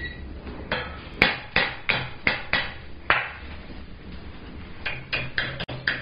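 Hand hammer striking the top of a mild-steel hook clamped in a vise, bending the upper hat hook into shape. About a dozen sharp blows fall in two runs, with a short pause between them.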